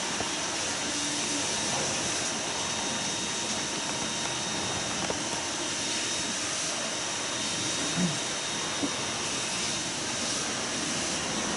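Daihatsu Mira Van engine running with a steady rattling ("garagara") noise, an abnormal sound coming from the alternator rather than the water pump the owner suspected. A short knock is heard about eight seconds in.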